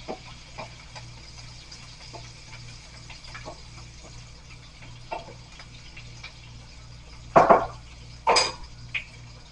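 Wooden spoon stirring in a pan on the stovetop, with light scrapes and taps, then two louder clatters of kitchenware about seven and eight seconds in.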